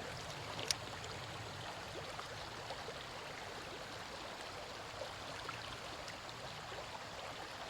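Creek water running over a riffle, a faint, even rush of current. A single light click about a second in.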